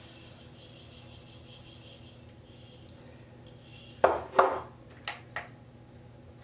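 Wheat berries being measured out into a container on a kitchen scale: a faint rattling hiss of pouring grain, then two loud hard knocks about four seconds in and two lighter clicks just after.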